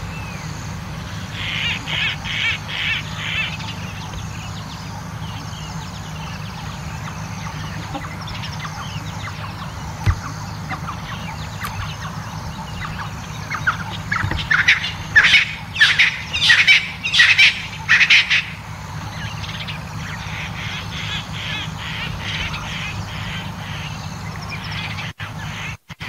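Early-morning bird chorus of several species in the African bushveld. A short run of repeated calls comes about two seconds in. The loudest part is a cluster of calls sweeping up and down in the middle, followed by a softer run of repeated notes near the end, all over a steady low hum.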